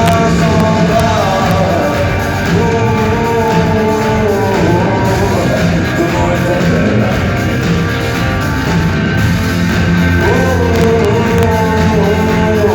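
Live pop-rock band playing at full level, with a melody line gliding over a steady bass and drums, recorded from the audience with poor, loud sound.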